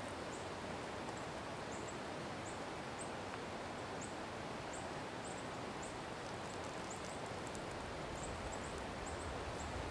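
Quiet outdoor ambience: a steady background hiss with faint, very high, short chirps repeating irregularly, one or two a second.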